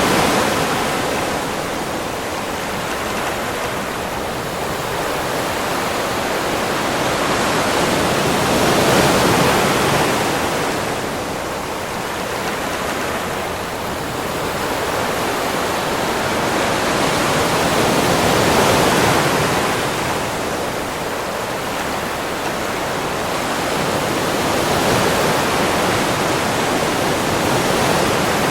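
Ocean surf washing onto a beach: a continuous rush of breaking water that swells and eases as each wave comes in, every several seconds.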